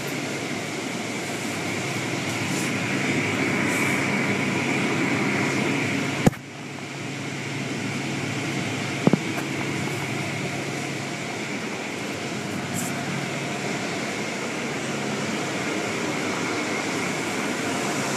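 Automatic car wash heard from inside the car: water spraying against the windows over a steady low machinery hum. A sharp knock comes about six seconds in and a short click about three seconds later.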